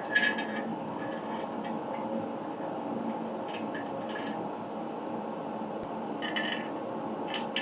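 Shop heater running steadily, with a few short, light metallic clinks and rattles of bolts, nuts and stand parts being handled.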